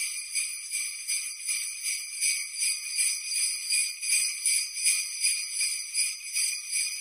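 Sleigh bells jingling in a steady rhythm, about two shakes a second, bright and high-pitched with no low sound under them.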